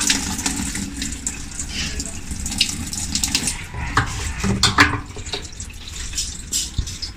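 Water running and splashing in an LG Smart Drum washing machine, over a low steady hum, with a few sharper knocks about four and five seconds in. The machine keeps draining while it takes in water: the continuous-drain fault.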